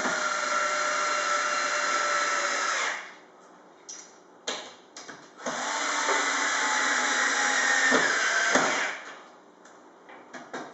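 Electric drill driving the bracket's fixing screws home into the wall plugs: two steady runs of the motor, each a few seconds long, with a few clicks in the short pause between them.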